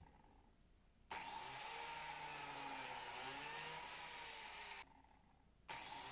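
Biscuit joiner's motor running with a steady whine whose pitch wavers slightly. It starts abruptly about a second in, cuts off suddenly about five seconds in, and comes back just before the end.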